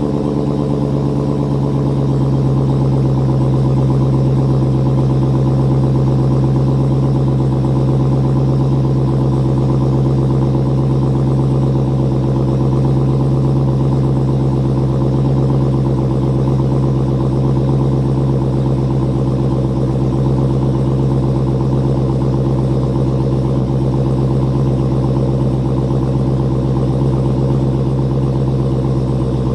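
2016 Dodge Challenger SRT Hellcat's supercharged 6.2-litre Hemi V8 idling steadily through its stock exhaust, on a cold start after the car has sat for a few days.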